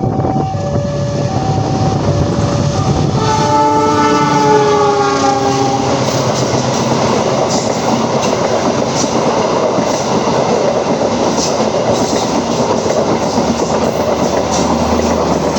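A CC 206 diesel locomotive blows its multi-note horn chord for about three seconds, the pitch sagging slightly as it passes. Its train then rolls by with a steady rumble and rhythmic wheel clicks over the rail joints. A two-tone warning signal beeps alternately through the first few seconds, before the horn.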